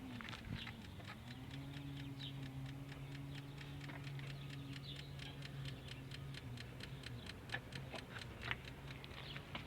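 Rapid, even clicking, several clicks a second, over a steady low hum. It comes from the transmission area of a 2000 Infiniti i30 with the engine off, in a car that won't start; the owner can't work out the cause.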